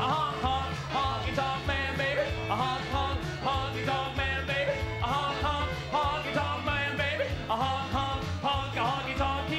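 Men singing a rock-and-roll song into microphones over band backing with a steady walking bass line.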